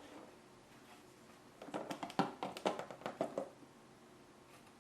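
A quick cluster of light clicks and taps in the middle, from small parts being handled as washers are fitted onto the CPU cooler's mounting screws.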